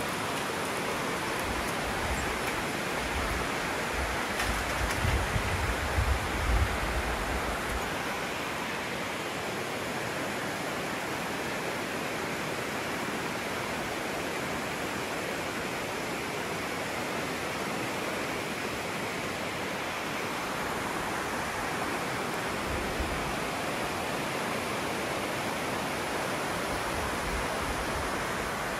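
Steady rushing of a shallow, rocky river running over rapids, heard from above. A few low rumbling thumps come about five to seven seconds in.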